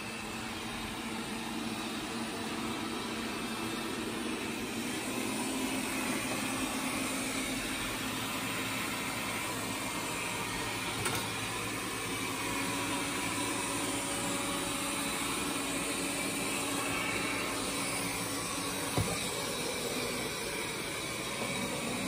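Wyze robot vacuum running steadily: an even whir of its suction fan and brushes with a faint whine. Two light ticks, about halfway through and near the end.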